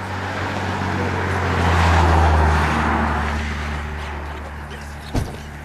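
A vehicle passing on the road, swelling to its loudest about two seconds in and fading away, over a steady low engine hum. A single sharp knock near the end.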